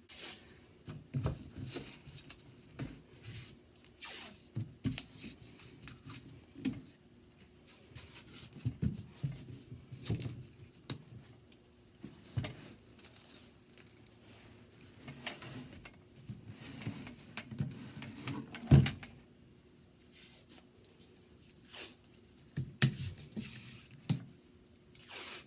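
Painter's tape being pulled off the roll and torn into strips to hold a glued drawer bottom in place, with irregular rustles, clicks and knocks from handling the wooden drawer; one sharper knock comes about two-thirds of the way through.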